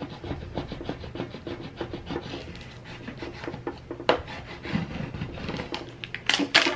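Fingers rubbing and scratching at the corner of a plastic Cricut transfer-tape sheet to peel it from its backing: a steady run of small scratchy ticks, with sharper clicks about four seconds in and again near the end.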